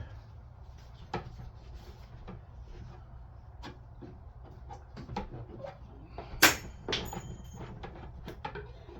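Scattered clicks and knocks of objects being handled and set down, with one sharp, loud knock about six and a half seconds in, over a faint steady low hum.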